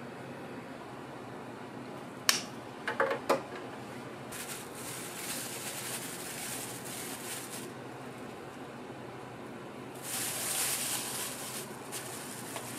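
Plastic bag of sliced onions crinkling in gloved hands, with a louder burst of rustling near the end, over a steady fan-like hum. About two seconds in, a sharp click and a few quick knocks, like utensils set down.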